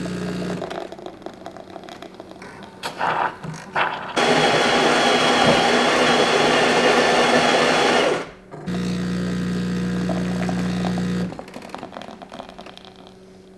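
Jura E8 super-automatic espresso machine brewing an extra-shot flat white. A loud grinding noise runs for about four seconds from around four seconds in, as its built-in grinder grinds beans for the next shot. The pump then hums steadily for about two and a half seconds, with quieter machine sounds in between.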